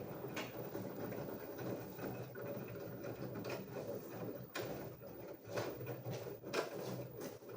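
LG front-loading washing machine running its wash cycle: a steady mechanical hum from the drum and motor, with scattered short clicks and knocks.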